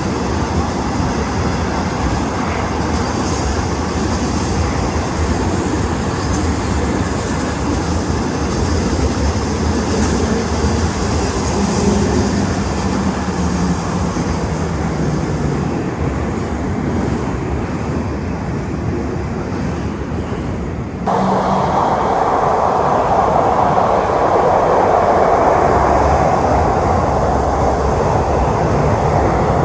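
Container freight train rolling past, its wagons' wheels running over the rails with a steady clatter. About two-thirds through, the sound changes suddenly to a louder, steady rush of another passing train.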